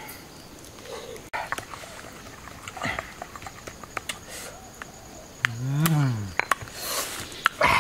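Stone pestle knocking and grinding in a small stone mortar, with scattered sharp taps. About five and a half seconds in comes one drawn-out call that rises and then falls in pitch, followed by a louder rustling burst near the end.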